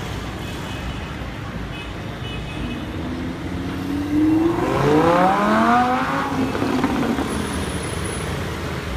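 Lamborghini Huracán's V10 engine accelerating hard. Its note climbs steeply for about two seconds, about four seconds in, then eases off as the car pulls away. Street traffic rumbles underneath.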